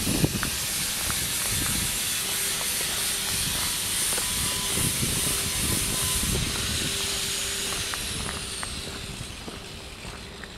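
A steady rushing hiss that fades away over the last few seconds.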